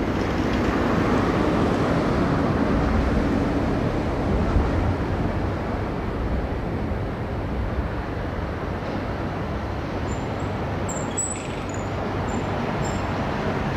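Steady low rumble of rail and town traffic beside the railway, with a few short high-pitched squeaks near the end.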